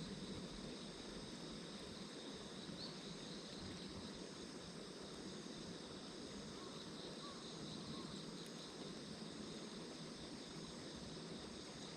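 Faint, steady outdoor ambience: an even low hiss with insects trilling.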